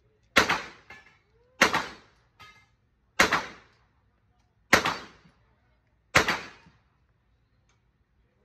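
Five single gunshots from an AR-style carbine, fired one at a time at an even pace about a second and a half apart. A short ringing follows the first two shots.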